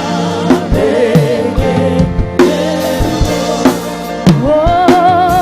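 Live gospel worship song: singing with vibrato over a drum kit. Near the end a sung note rises and is held.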